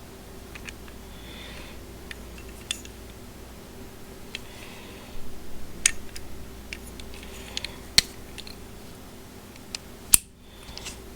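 Scattered clicks and taps of small metal tool parts being handled, with a short clattery run about five seconds in and sharp single clicks near eight and ten seconds. A low steady hum runs underneath.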